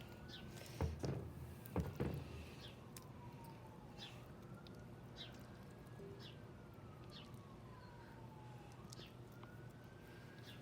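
Faint police siren wailing, its pitch slowly rising and falling about every five seconds. About one and two seconds in, two louder squelches from the sticky slime being worked by hand.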